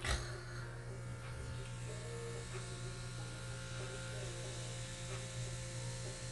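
Anlan blackhead pore vacuum running with a steady electric motor hum as its suction nozzle is worked over the skin. A single short knock comes right at the start.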